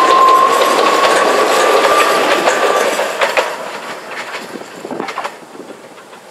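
Kōnan Railway 7000-series two-car electric train (cars 7034 and 7033) passing close by, its running noise joined by a steady high whine that rises slightly in pitch and stops about three seconds in. Wheels click over rail joints as the sound fades away with the train moving off.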